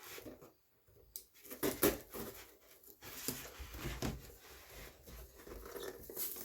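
Irregular rustling, scraping and knocking of a cardboard box and its packing being handled, with a tightly packed product being worked out of the box.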